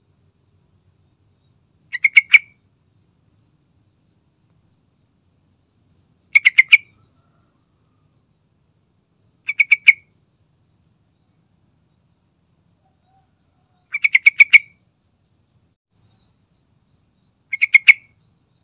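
Yellow-vented bulbul calling: five short bursts of quick notes, each under a second long, spaced a few seconds apart.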